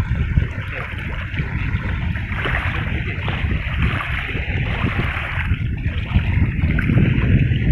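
Wind buffeting the microphone over steady water noise from waves on the reservoir, a rough low rumble with a hissing wash above it.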